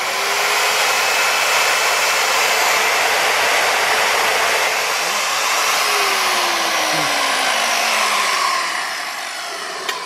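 Ridgid wet tile saw switched on and running with no cut, its motor, blade and small water pump giving a loud, steady noise. Over the last couple of seconds the pitch falls and the sound winds down.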